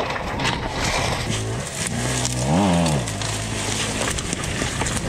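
Dirt bike engine running at a steady pitch, revving up and straight back down once about two and a half seconds in, over a broad rushing noise.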